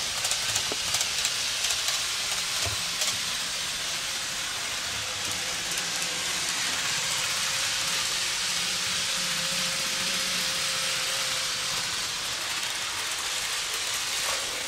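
Kato N gauge Class 800 model train running along the layout track: a steady hiss of the small wheels and motor, with a faint whine for a few seconds in the middle.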